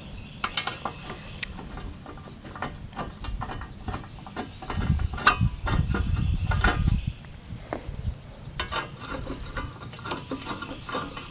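An aerosol can spraying onto a lawn tractor's starter motor, with irregular metallic clicks and rattles of hand work. A louder stretch of low handling noise comes about five to seven seconds in.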